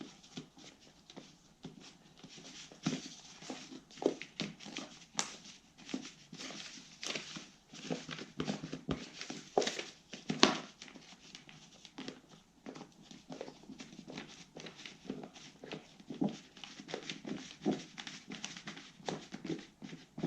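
Two-part epoxy resin and hardener being scraped together with a spatula: irregular scrapes and clicks, with a few sharper knocks.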